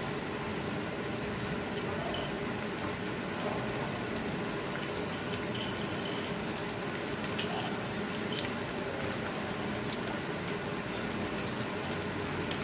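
Potato pieces sizzling as they fry in hot mustard oil with onions in a karahi: a steady hiss with scattered sharp crackles.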